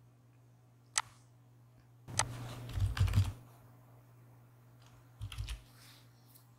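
Clicks of a computer mouse and keyboard, picked up by a desk microphone: one sharp click about a second in, a cluster of clicks with dull thumps a little after two seconds, and another brief thump near the end, over a steady low hum.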